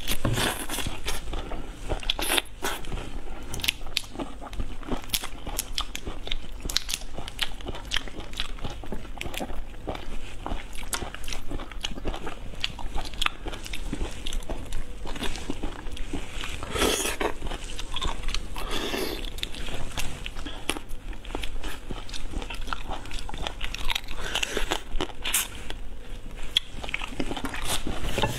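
Close-miked eating: a person biting and chewing food picked up by hand, with many sharp crunches and crackles coming irregularly.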